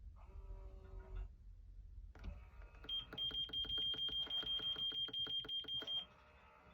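Life Fitness X3 elliptical cross-trainer making a strange sound that its owner cannot explain at only 70 hours of use. After a short whir, a rapid even chattering of about six pulses a second with a steady high whine over it starts about two seconds in and lasts about four seconds, then drops to a quieter steady hum.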